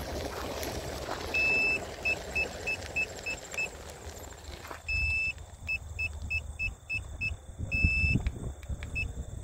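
Electronic beeping from the iSinwheel S9 Max electric scooter: a steady-pitched beep that sounds once long and then as a quick run of short beeps, the pattern repeating three times, over a low rumble.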